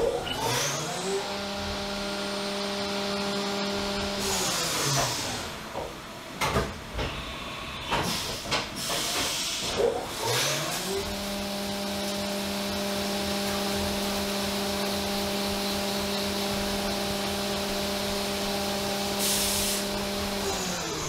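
CNC milling machine spindle whining up to speed, running steadily under a hiss of coolant spray while spot-drilling and drilling a hole in 6061 aluminium, then winding down. This happens twice, with clunks and knocks in between.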